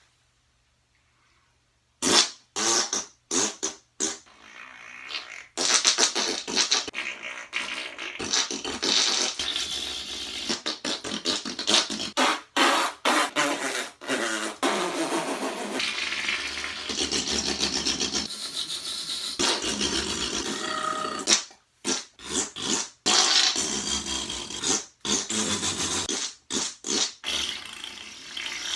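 Fart noises: after about two seconds of near silence, a run of short sputters, then long drawn-out raspy ones with brief gaps, and another burst of short sputters about three-quarters of the way through.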